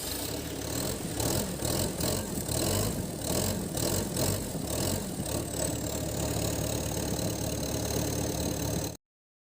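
Komatsu PC138 excavator's diesel engine running just after starting, fitted with a freshly calibrated injection pump and injectors. It runs unevenly for about the first five seconds, then settles into a steadier idle with a thin high whine.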